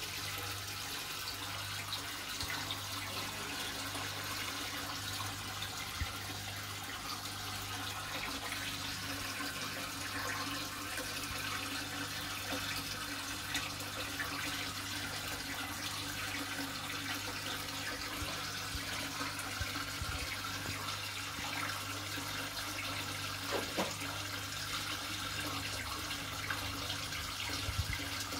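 Aquarium water circulating, with a steady trickling and bubbling from the pump and filter over a constant low electrical hum with a regular low pulse. A few faint knocks come through.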